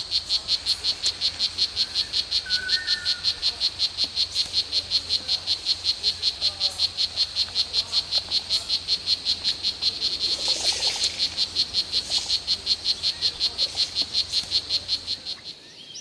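Frogs calling, many at once: a loud, high-pitched pulsing at about five pulses a second, the chorus of territorial males. It fades out just before the end.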